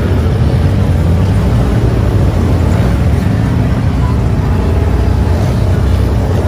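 Loud, steady low rumble of off-road vehicle engines running at low speed.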